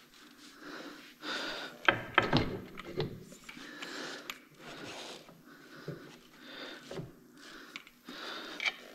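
Hands working on truck parts: a cluster of knocks and clinks about two seconds in and a few lighter clunks later, with close, repeated breathing.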